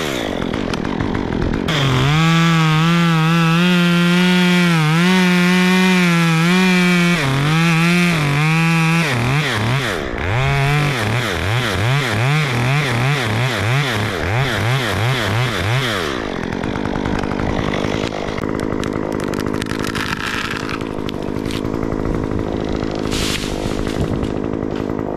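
Stihl two-stroke chainsaw cutting through a eucalyptus trunk at high revs, its pitch wavering under load. About nine seconds in, the revs rise and fall in quick repeated blips, about twice a second, and around sixteen seconds in the saw drops back to a lower, rougher running sound.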